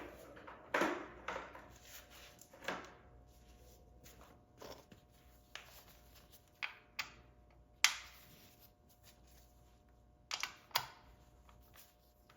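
Tools and parts being handled on a motorcycle's primary drive: a string of separate light clicks and knocks, the sharpest about a second in and near eight seconds, with a quick pair a little after ten seconds.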